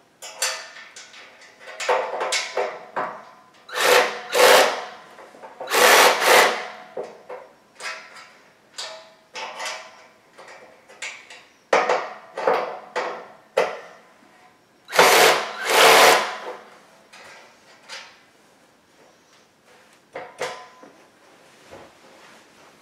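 Cordless drill with a hex bit driving bolts into a metal bed-frame rail in repeated short bursts, each a second or less, the motor whining under load.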